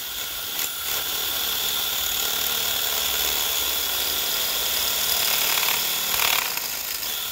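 DeWalt DCD996 cordless hammer drill in hammer-drill mode at its highest speed, boring a hole into a concrete slab with a masonry bit. Steady running that cuts off abruptly just after the end.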